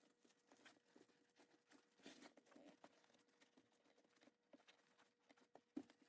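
Near silence with faint scattered clicks and rustles of hands working on a car seat back, one sharper click near the end, over a faint steady hum.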